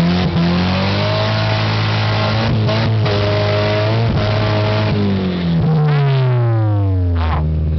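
Vehicle engine running under load on a rough track: its pitch climbs slightly in the first second and holds steady, then falls gradually from about five seconds in as the engine winds down, settling at a lower steady note near the end.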